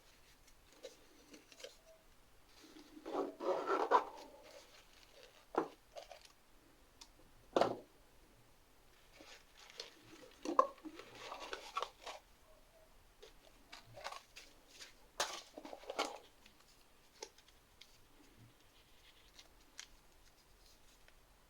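Objects being handled: intermittent rustling and scraping with scattered sharp clicks, loudest in two stretches about three seconds in and about ten seconds in.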